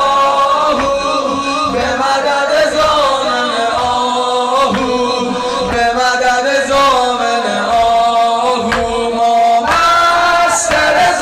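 Male voices chanting a Shia mourning lament (noha) in long, held melodic lines.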